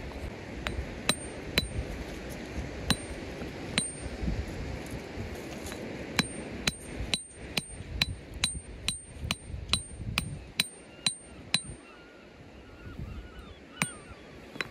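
Geological pick hammer striking a hard stone in sharp metal-on-rock taps with a short ringing edge. A few spaced strikes come first, then a quick run at two or three a second for several seconds, and one last strike near the end.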